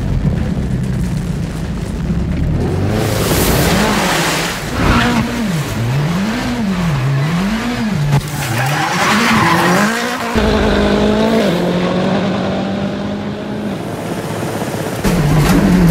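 Ford Focus RS rallycross car drifting: the engine revs rise and fall over and over, about once a second through the middle, then hold steadier near the end, with tyres squealing and skidding throughout.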